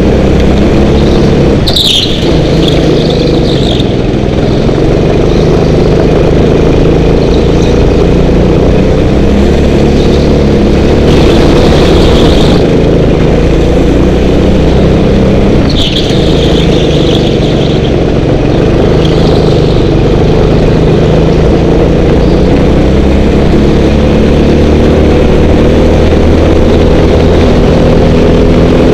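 Go-kart engine running hard, heard from on board, its pitch rising and falling with the throttle through the laps. Several short bursts of tyre squeal come in the corners.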